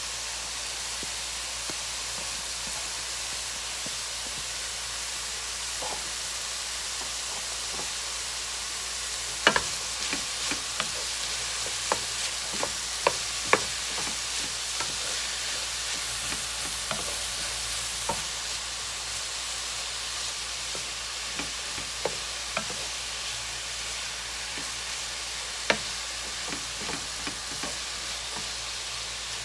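Diced zucchini, onion and bell pepper sizzling in hot oil in a frying pan, a steady hiss. From about ten seconds in, a wooden spatula stirs them, with scattered sharp knocks and scrapes against the pan.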